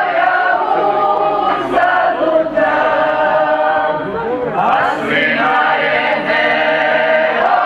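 A mixed group of men and women singing together, holding long drawn-out notes.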